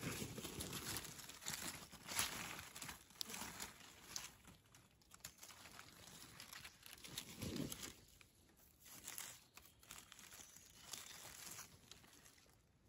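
Dry fallen leaves rustling and crackling, faint and irregular, as they are stepped on and pushed aside by hand; louder in the first few seconds.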